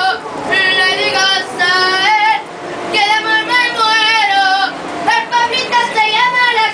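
A woman singing a Chilean song in long held notes, with small bends in pitch.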